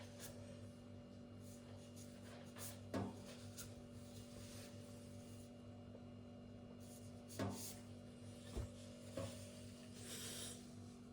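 Faint handling noises: a few short, sharp clicks or taps spread apart, and a brief rubbing hiss near the end, over a steady low hum.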